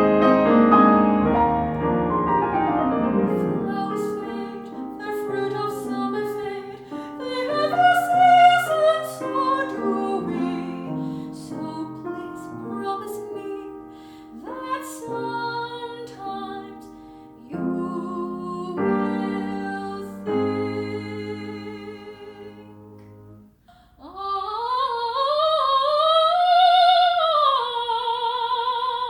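Operatic soprano singing classical repertoire with piano accompaniment. Near the end the voice slides up into a long held high note with wide vibrato.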